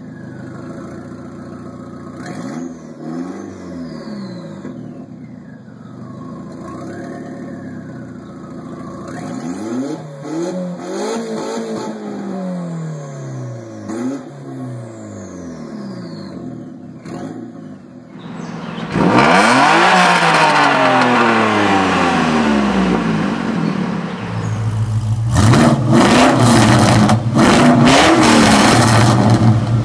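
A B5 Audi A4's turbocharged 1.8T four-cylinder, with a test pipe, Forge 007 diverter valve and APR stage one tune, revved in short blips, with turbo whistle falling away after several of them. About two-thirds of the way in it gives way to the much louder 5.7-litre V8 of a 2004 Pontiac GTO, revved hard several times.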